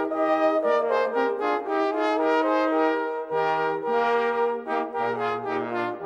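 Brass ensemble playing sustained chords in several parts, the notes moving together as in a chorale.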